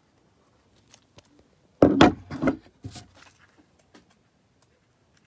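Handling noise: a cluster of knocks and rustles about two seconds in, with a few smaller clicks, as the phone and small desk items are moved about.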